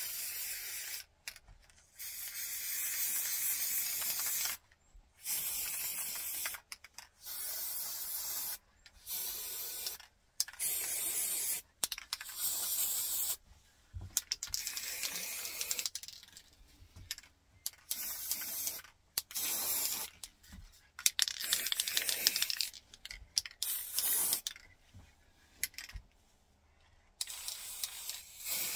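Aerosol spray paint can hissing in repeated short bursts of one to two seconds, with brief pauses between them, as a first coat of brown paint is sprayed on.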